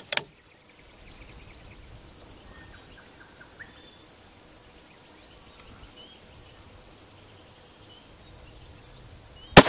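Quiet open-air ambience with faint bird chirps, then a single loud rifle shot near the end.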